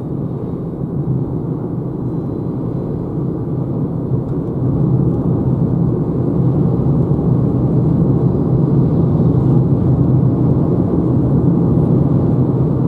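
Road and wind noise inside a Renault Zoé's cabin as the electric car gathers speed, a steady low rumble that grows louder about five seconds in. The wind is strong and annoying.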